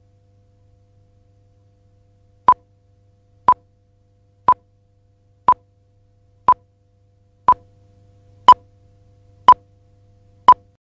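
A series of short electronic beeps, all at one pitch, exactly one a second: nine beeps starting a couple of seconds in, the last three louder, over a faint low hum.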